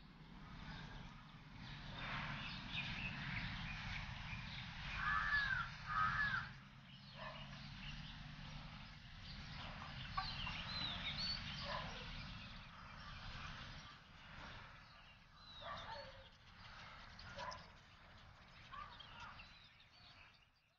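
Quiet rural outdoor ambience with chickens clucking, two rising-and-falling calls about five seconds in, and small birds chirping now and then.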